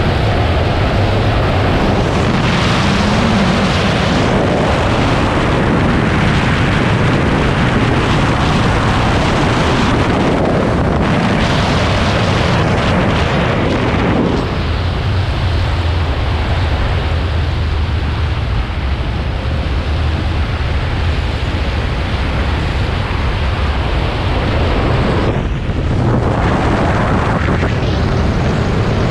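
Yamaha Tracer 700's 689 cc parallel-twin engine running steadily under way, mixed with loud wind rush on the on-board microphone. The rushing wind noise eases about halfway through, leaving the engine's low hum more prominent.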